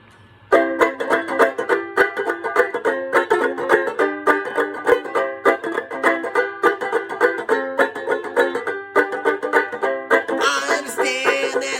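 Banjolele strummed in a steady rhythm, starting suddenly about half a second in. A singing voice comes in over it near the end.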